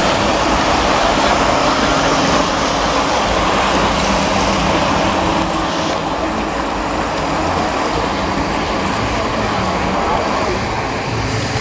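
Steady engine noise mixed with the murmur of a crowd.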